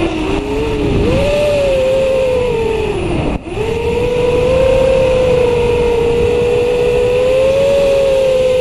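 Camera drone's electric motors and propellers whining in flight, the pitch wavering up and down with the throttle. About three and a half seconds in the whine drops away for a moment and comes straight back up.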